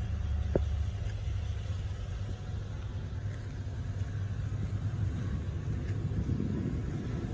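An engine idling steadily, a low even hum, with one light click shortly after the start.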